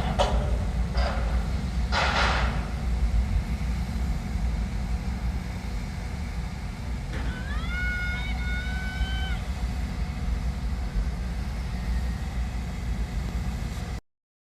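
Steady low rumble of road traffic, with a few short hissing bursts in the first couple of seconds. About seven seconds in, a high tone rises slightly and holds for about two seconds. The sound cuts off suddenly near the end.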